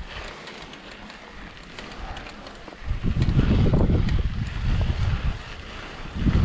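Wind buffeting the microphone during a mountain bike ride: a low rumbling rush that swells about three seconds in and again near the end, over light clicking and rattling from the bike on the trail.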